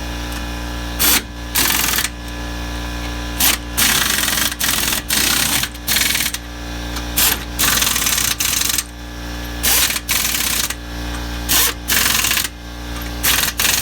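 Impact wrench hammering in short bursts, a quick blip then a longer run on each lug nut in turn as the wheel's lug nuts are run down and snugged.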